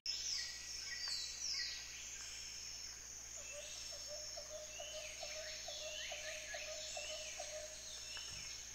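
Birdsong ambience: many birds chirping in quick, high, downward-sliding calls, with a run of short lower notes repeated at an even pace through the middle.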